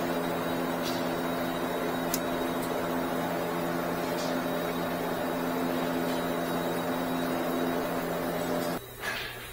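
Nissan Rogue HVAC blower motor with its squirrel-cage fan, run outside the car on clip leads for a test: a steady whirring hum with rushing air that starts at once and cuts off abruptly near the end.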